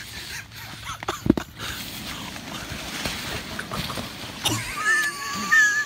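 Rustling and scraping of tent fabric, sleeping bag and airbed as a sleeping person on an airbed is dragged out of a tent, with a sharp knock about a second in. Near the end a thin, wavering squeak.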